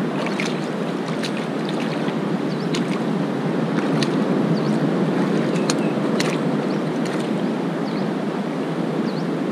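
Steady wash of sea surf and wind over a rocky reef flat, with scattered faint clicks and splashes.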